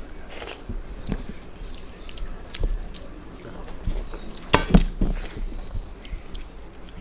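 Eating sounds: chewing and mouth smacking, with scattered small clicks and a brief louder noise about four and a half seconds in.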